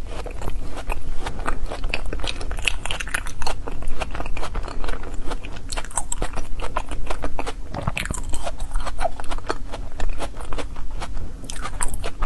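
A person biting and chewing frozen foam ice: dense, irregular crunching with many quick crisp snaps.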